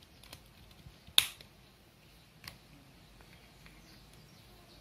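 Sharp plastic clicks from a Supergirl fashion doll being handled: one loud snap about a second in, a smaller click about two and a half seconds in, and a few faint ticks.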